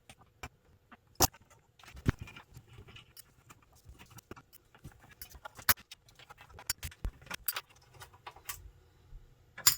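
Scattered small metallic clicks and clinks from the knobs and their securing nuts being taken off a preamp's front panel. The sharpest clicks come about a second in, midway and at the very end.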